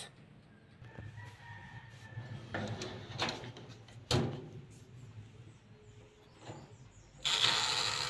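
A metal muffin tin handled into a countertop electric oven: faint knocks and scrapes, a sharp click about four seconds in as the glass oven door is worked, then a rush of noise lasting about a second and a half near the end.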